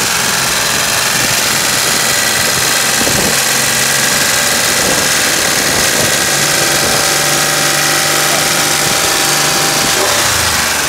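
Ford F-150 pickup engine running hard at a steady, high throttle, loud and even, heard up close under the open hood. Crushed limestone is being poured into its oil filler, so it is running with abrasive grit in its oil.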